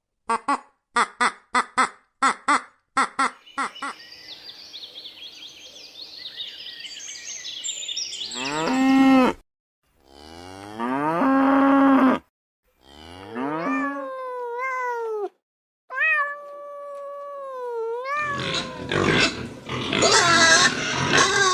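A run of different animal calls, one after another: quick short calls repeated about three times a second, then a high chattering, then long drawn pitched calls and rising-and-falling calls, ending in a loud rough call.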